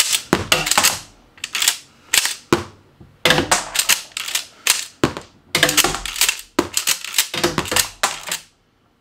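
A Mossberg 590A1 12-gauge pump-action shotgun being unloaded: the slide is racked back and forth several times, each stroke a run of metal clacks as a shell is ejected and falls onto the table. The clacking stops about half a second before the end.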